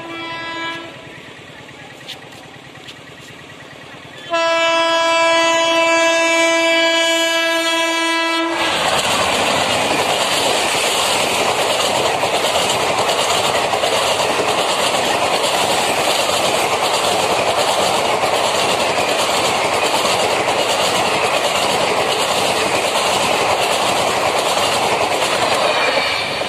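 Electric locomotive horn: a blast fading out in the first second, then one long blast of about four seconds. Then a train of ICF passenger coaches running close by, its wheels clicking rhythmically over the rail joints before the sound fades near the end.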